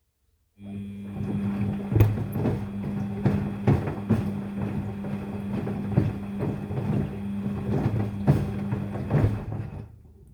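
Daewoo DWD-FT10013 washing machine on its rinse cycle: the drum motor starts about half a second in and runs with a steady hum while the load tumbles, with irregular knocks, then stops near the end, one turning phase of the rinse.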